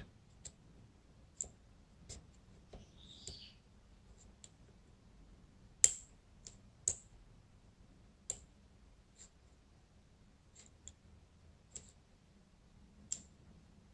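Scattered small metallic clicks from a rotor pick being worked in a Dom IX Saturn lock cylinder, as pins are set during picking. The clicks come at uneven intervals, the two loudest around the middle.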